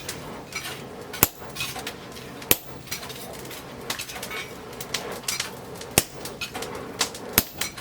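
A hammer striking steel: a few sharp, irregularly spaced blows with lighter taps between them.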